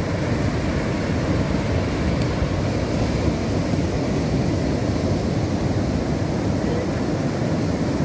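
Heavy Indian Ocean surf breaking along a sandy beach: a loud, steady rumble of waves with no single crash standing out.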